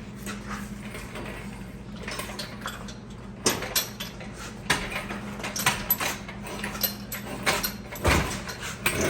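Hand tools and metal parts clicking and clanking irregularly during a car teardown, the knocks coming thicker in the second half, over a steady low hum.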